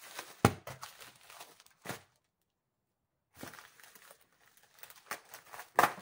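Rustling and crinkling of a white padded mailer being handled on a table, with a sharp knock about half a second in and another near the end. The sound breaks off into dead silence for about a second in the middle.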